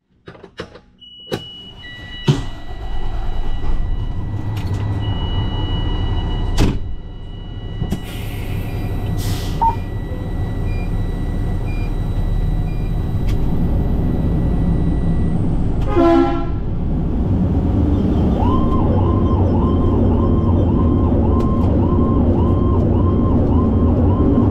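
Cab of a fire engine getting under way. Door and latch clicks come first, then the diesel engine running under a steady high electronic warning tone. From about three-quarters in, an electronic siren cycles up and down about twice a second.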